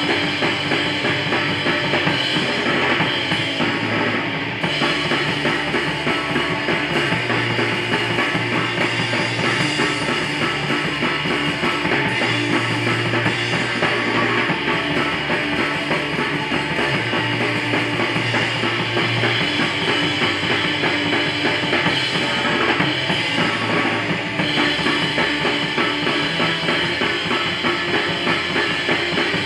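Crust punk band playing live and loud: a drum kit with kick drum and cymbals drives the song under electric bass and guitar, the low bass notes changing every few seconds.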